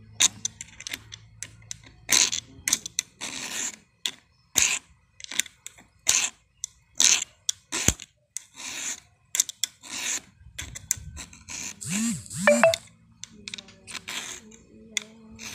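Hand file rasping across the cutter teeth of a chainsaw chain, about one stroke a second, each stroke pushed in one direction to sharpen the cutters. A brief louder sound comes about twelve seconds in.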